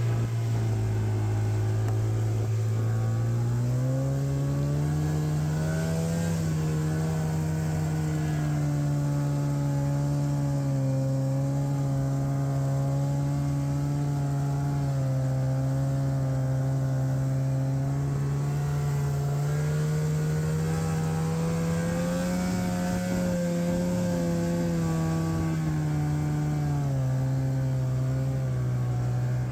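Arctic Cat Bearcat snowmobile engine running under load while towing a sled through snow. Its pitch climbs about four seconds in, holds steady, rises again about two-thirds of the way through, and eases off near the end.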